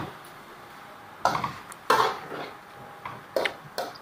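Metal cooking utensils clinking and scraping: tongs against a stir-fry wok and a spoon against small dishes. Two louder clinks come about one and two seconds in, with lighter taps near the end.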